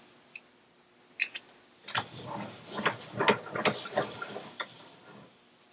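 Light clicks and knocks of a taped Glock slide, padded with nylon strips, being handled and set between the jaws of a bench vise. There are a couple of clicks about a second in, then a busy run of clicking and rattling that stops shortly before the end.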